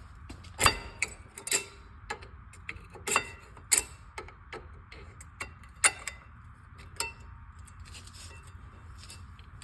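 Small screwdriver prying the old metal pad clips out of a rear brake caliper bracket: irregular sharp metal clicks and scrapes, with a few louder snaps.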